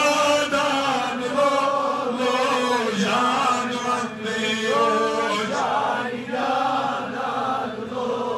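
A man chanting a Kashmiri naat, a devotional poem in praise of the Prophet, in long, wavering held notes that slide up and down in pitch.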